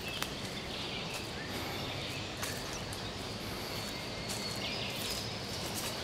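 Footsteps crunching on a path of dry fallen leaves, with a few short, high bird calls over a steady outdoor hiss.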